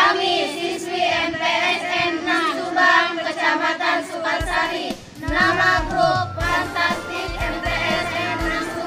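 A group of girls' and women's voices singing a chant together in unison. About four and a half seconds in, a steady bass beat joins under the singing.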